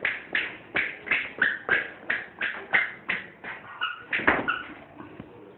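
A toddler's squeaky shoes squeaking with each step as he walks, about three squeaks a second, fading near the end.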